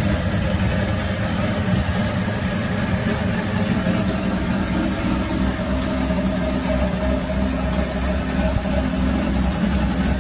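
Steady hum and drone of a running motor-generator rig, a claimed magnetic generator with its rotor turning, holding an even pitch and level throughout.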